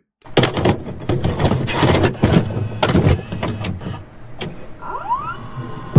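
Glitchy electronic intro sound effects: a dense run of clicks and crackles, with a short rising sweep near the end.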